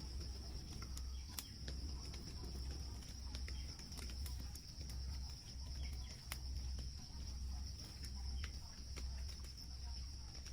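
Insects in the rainforest keep up a steady high-pitched drone, with scattered light clicks and a low, uneven rumble underneath.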